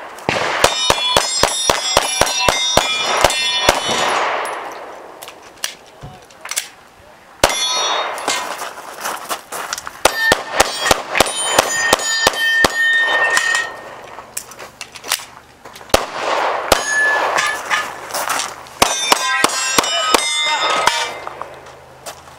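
Handgun shots in rapid strings, each bullet striking a steel plate target that rings with a metallic clang. There are three quick strings of fire with short pauses between them.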